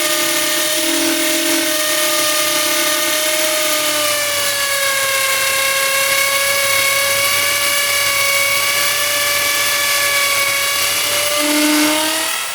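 High-speed electric drill motor whining steadily. Its pitch sags a little from about four seconds in as the spinning bit is pressed against the metal for friction heating, then climbs back near the end as the load comes off.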